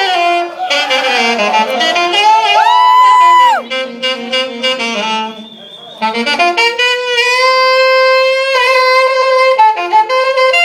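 Jazz saxophone playing an unaccompanied solo: quick runs of notes, a high note bent up into place and held briefly about three seconds in, and long sustained notes in the second half.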